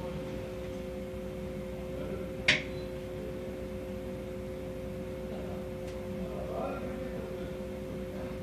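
Steady mechanical hum made of two constant tones over a low rumble, with one sharp click about two and a half seconds in.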